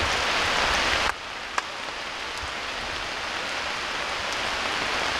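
Steady rain falling, an even hiss of drops. About a second in it abruptly becomes quieter, and a single sharp tap sounds shortly after.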